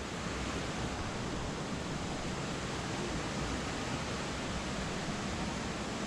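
Steady rush of water from a waterfall, an even hiss with no change.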